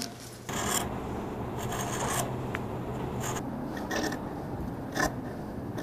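Scissors cutting through fabric, a series of short snips with the blades sliding through the cloth between them.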